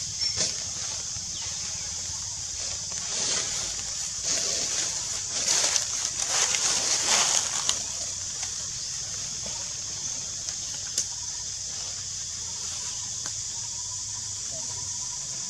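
Leaves and branches rustling in a tree for a few seconds in the middle, over a steady high-pitched drone of forest background, with one sharp click near the end.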